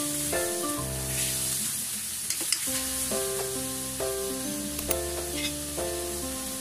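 Chicken pieces sizzling as they fry in a metal wok while a spatula stirs them, with a few sharp clicks against the pan about two and a half seconds in and again near five seconds. Background music with a simple melody of short notes plays over the frying.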